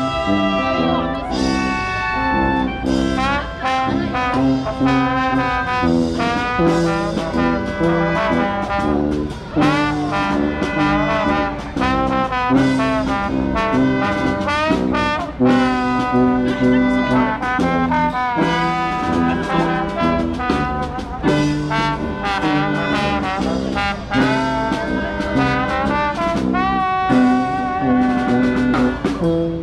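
Jazzy music led by brass instruments, with wavering held melody notes over a steady bass line.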